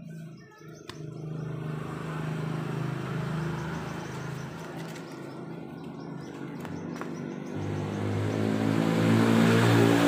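Small motorcycle engine running steadily, then getting deeper and louder over the last two seconds or so.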